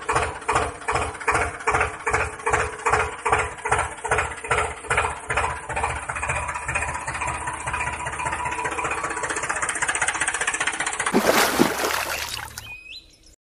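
Slow, regular tractor-style engine chugging at about three beats a second, which smooths into a steady run after about six seconds. Near the end a loud rushing burst takes over, and then the sound cuts off suddenly.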